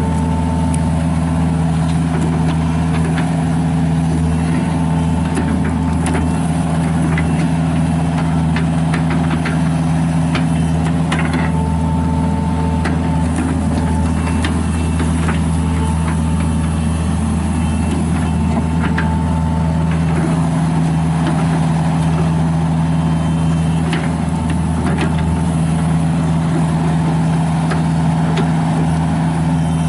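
John Deere 50G mini excavator's diesel engine running at a steady speed, with scattered light clicks and a faint higher whine over the engine.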